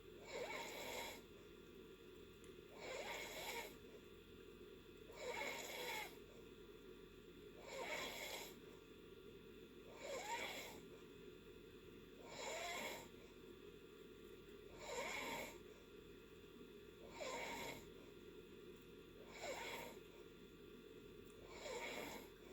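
A person snoring in deep sleep: an even rhythm of snores, one about every two and a half seconds.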